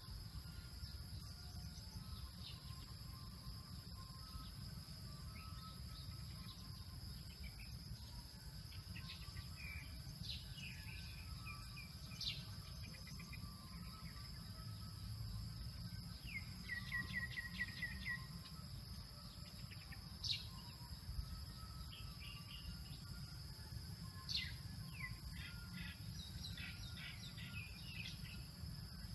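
Birds chirping now and then, with short falling calls and a rapid trill of repeated notes a little past the middle. Underneath runs a steady high-pitched insect drone and a low rumble.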